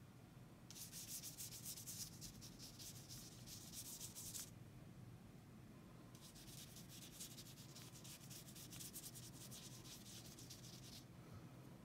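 Faint scrubbing of a paintbrush's bristles on paper as it works thick wet paint back and forth in quick strokes. It comes in two spells, the first starting about a second in and the second about six seconds in.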